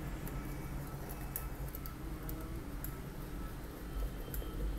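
Faint, irregular small clicks and ticks of a screwdriver turning the screws of a screw terminal block as wires are clamped in, over a low steady hum.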